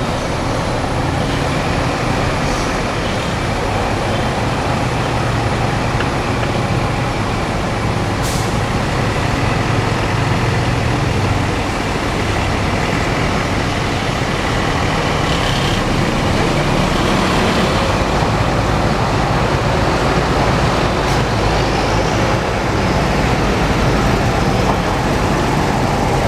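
Big diesel bus engines running with steady traffic noise, and a short air-brake hiss about eight seconds in.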